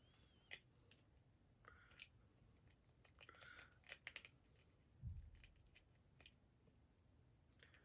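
Near silence with faint, scattered clicks and short scrapes of small plastic Nendoroid figure parts being handled and fitted together by hand, and one soft low thump about five seconds in.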